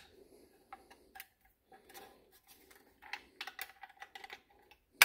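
Light clicks and ticks of a screwdriver tip working the spring-loaded wire J-hook latches on a plastic GM large-cap HEI distributor cap, setting them out of the way. The clicks come scattered, bunch into a quick run of ticks about three seconds in, and end in one sharp click.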